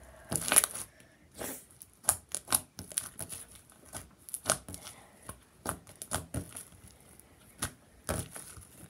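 Sticky slime being squeezed and pulled apart by hand, giving irregular sharp crackling pops and tearing snaps.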